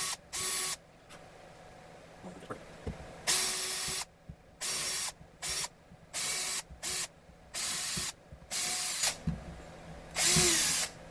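Cordless drill run in about nine short trigger bursts, each under a second with pauses between, as the bit is worked into holes in an MDF fixture plate; the last burst, near the end, is the longest and loudest.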